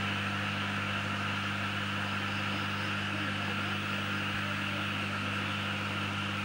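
Steady electrical mains hum with a hiss over it, unchanging throughout.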